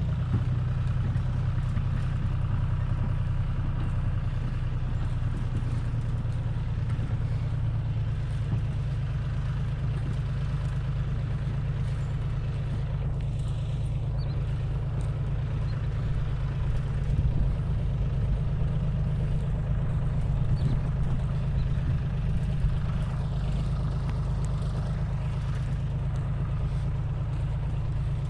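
A heavy vehicle's engine running steadily, a low, even hum with no breaks.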